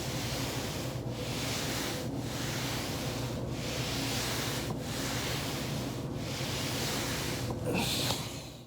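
Foam roller rolling back and forth under a person's body, a swell of rubbing noise with each pass, about one pass every second and a quarter. A louder rustle comes near the end.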